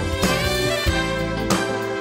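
Background jazz music led by a saxophone, with a steady beat.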